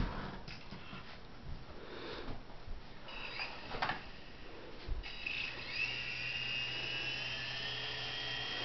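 Toy remote-control helicopter's small electric motor and rotor starting up about five seconds in: a steady high whine over a low hum, creeping slightly up in pitch as throttle is added. Faint handling clicks come before it.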